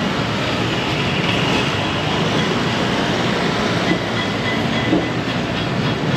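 Steady, fairly loud city street noise: traffic rumble from passing vehicles with general urban hubbub and a few small knocks.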